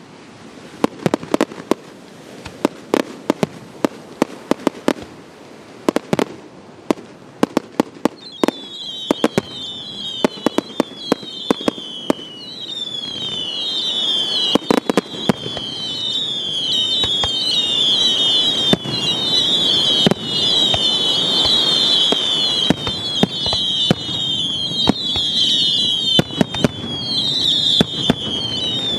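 Fireworks display: shells bursting in a rapid string of sharp bangs. From about eight seconds in, many whistling fireworks join in overlapping falling whistles, and the barrage grows steadily louder.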